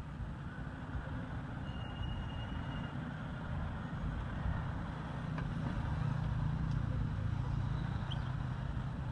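Steady low rumbling background noise that swells from about five seconds in, with a short thin high tone about two seconds in.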